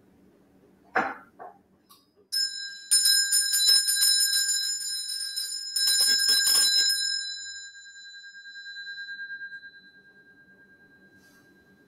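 A small hand bell picked up with a soft knock, then rung with quick repeated strikes in two bursts about a second apart, its bright tone ringing on and fading out slowly after the ringing stops.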